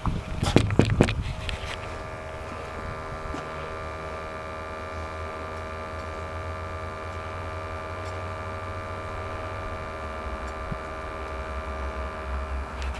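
Steady motor hum with several held tones, with a few sharp knocks and clicks in the first two seconds.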